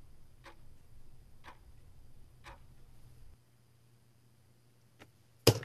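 Steady clock-like ticking, about one tick a second, over a low hum that stops about three and a half seconds in. Near the end comes a single loud, sharp click, the push button being pressed to stop the timer.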